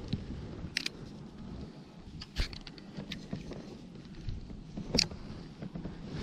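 A spinning reel and rod being handled, giving a few sharp clicks and knocks, the loudest near the end, with a run of small ticks in between, over a low steady rumble.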